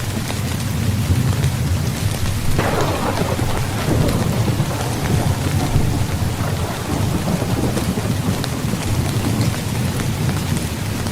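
Steady heavy rain under a low, continuous thunder rumble. About two and a half seconds in, a sharper thunderclap breaks and rolls away over several seconds.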